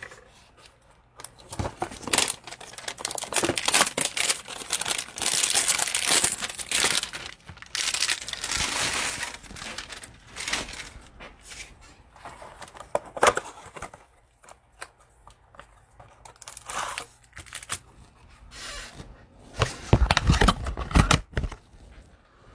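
Plastic wrapping of a trading-card hanger box crinkling and tearing as it is opened by hand, in irregular bursts that are densest in the first half. A few louder knocks come near the end.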